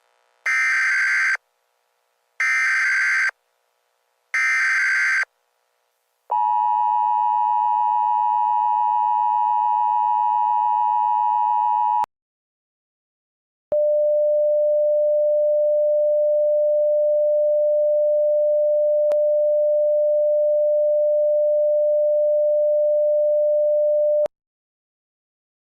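Emergency Alert System header: three short buzzy data bursts, then the two-tone attention signal held for about six seconds. After a brief gap, a single steady tone sounds for about ten seconds and cuts off sharply.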